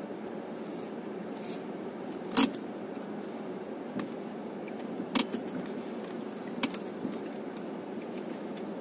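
Steady low drone of an Opel Frontera 2.0 crawling slowly along a rough trail, heard inside the cabin. Three sharp knocks from the cabin break through it, the loudest about two and a half seconds in.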